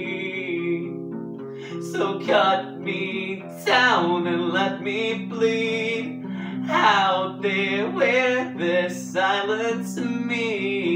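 Acoustic guitar being strummed in slow chords. A man's singing voice comes in about two seconds in and carries a slow melody with wavering held notes over the guitar.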